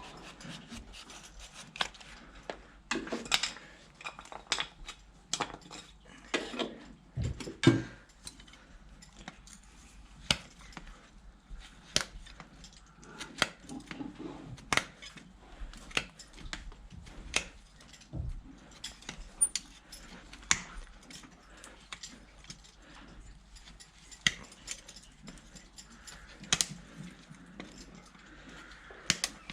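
Metal hoof-trimming tools working on a horse's hoof: irregular sharp clicks and short scrapes as the horn is pared and cleaned out, with an occasional dull knock.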